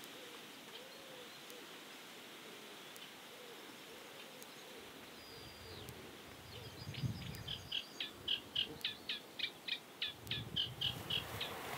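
Birds calling on a riverbank: faint low calls in the first half, then from about halfway a rhythmic series of high repeated notes at about three a second.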